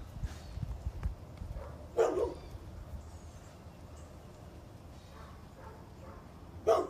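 A puppy barking: two short single barks, one about two seconds in and one near the end.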